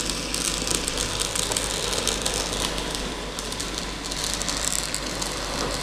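Small electric model tram running along its track, its motor and gears whirring steadily with a fine rapid clicking and rattling of the wheels on the rails.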